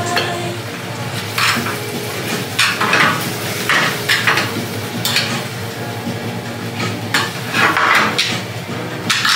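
Noodles being stirred and tossed in a frying pan over a gas burner, with a metal utensil clinking and scraping against the pan at irregular moments while the sauce sizzles. A steady low hum runs underneath.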